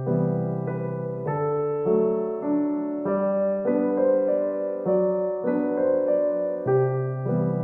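Background piano music: soft sustained chords, a new chord struck about every half second to second.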